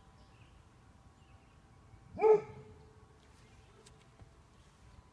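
A dog barks once, a single short bark about two seconds in that rises and falls quickly in pitch.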